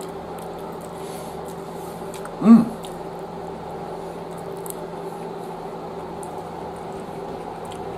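A man chewing a mouthful of noodles gives one short voiced 'mm' about two and a half seconds in, over a steady low room hum.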